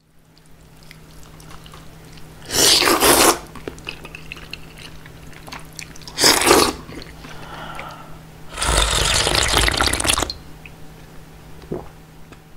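Slurping of cold soy-milk noodle soup (kongguksu) noodles, close up: three loud slurps, one about two and a half seconds in, one about six seconds in, and a longer one of about a second and a half near nine seconds. Faint mouth clicks and a low steady hum lie between them.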